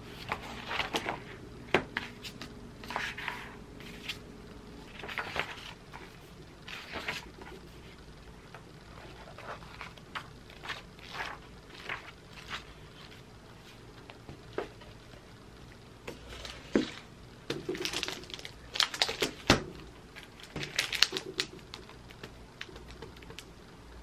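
Paper pages of a new diary being handled and flipped: a series of short rustles and swishes. They come most thickly in a quick flurry about three quarters of the way through.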